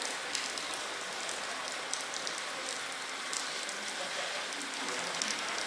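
Steady hissing background noise with faint scattered ticks, like light rain.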